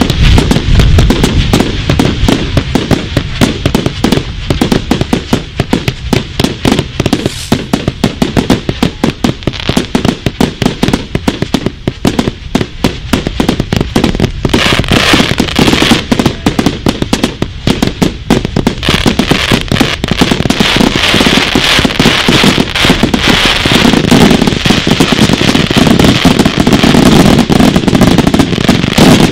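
Firework cakes firing a rapid, continuous barrage of sharp bangs, many a second. The reports crowd closer together and grow louder for roughly the last ten seconds.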